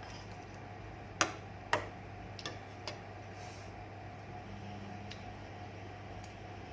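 Eating sounds at a meal of rice and egg: a few sharp clicks of tableware, two clear ones a little over a second in, half a second apart, then weaker taps and faint ticks, over a steady low hum.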